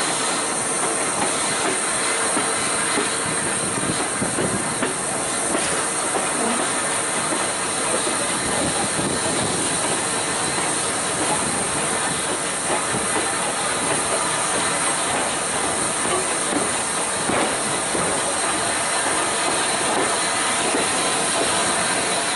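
Steam-hauled passenger train running into a station, heard from an open carriage window just behind the locomotive: a steady rush of steam hiss and wheel-on-rail noise, with faint clacks of the wheels over rail joints.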